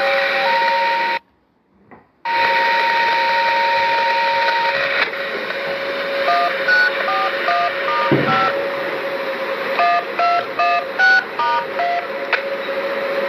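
Touch-tone (DTMF) code sent over a radio channel, of the kind used to activate outdoor warning sirens. A long steady beep cuts out briefly about a second in, then runs on to about five seconds. After that comes a quick string of short two-pitch beeps over a steady background tone.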